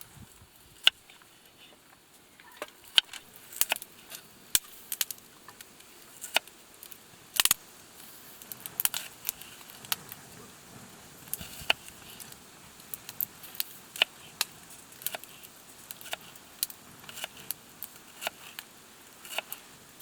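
Wood campfire crackling, with sharp irregular pops and snaps about one or two a second over a faint hiss. One louder, longer crack comes a third of the way in.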